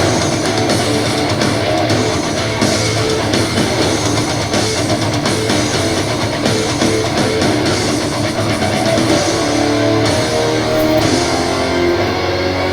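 Background rock music with distorted electric guitar and drums.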